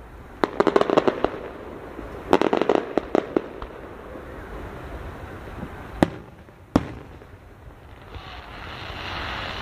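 Consumer fireworks going off: two quick runs of rapid crackling pops, then two single sharp bangs a little under a second apart, and a steady rushing hiss building near the end.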